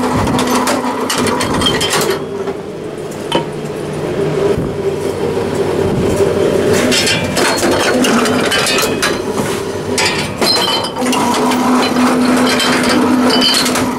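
Tomra reverse vending machine running with a steady motor hum as it takes in a container, with clinking and clattering from the containers inside. The hum is strongest near the end.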